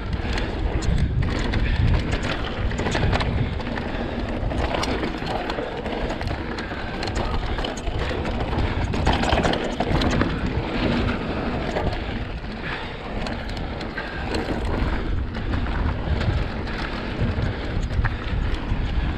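2020 Vitus Sommet CRS full-suspension mountain bike riding down a dirt singletrack: tyres rolling over dirt, with many small clicks and rattles from the bike over bumps. Steady wind rumble on the chest-mounted action camera's microphone.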